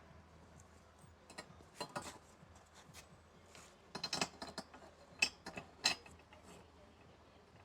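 Small hard parts clicking and rattling as they are handled, in a few short clusters, the loudest about four to six seconds in; these are likely the garage door opener's belt and pulley hardware being handled.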